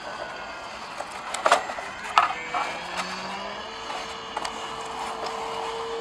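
Handling noises from a broken EPP foam RC plane being picked up and its pieces fitted together: a few scattered clicks and taps, over a faint steady hum.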